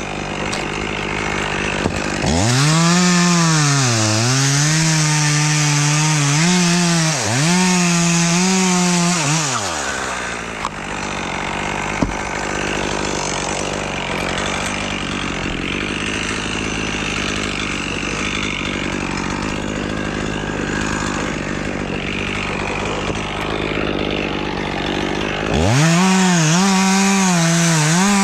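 Two-stroke chainsaw idling, then throttled up into a cut about two seconds in, its pitch sagging twice as the chain bogs in the wood. It drops back to idle about a third of the way through and revs up into another cut near the end.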